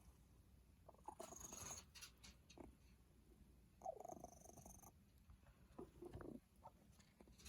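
A cat with cat flu (feline upper respiratory infection) breathing faintly and noisily, with purring, in several short, uneven breaths. The congested breathing is the sign of the infection, which is on the mend.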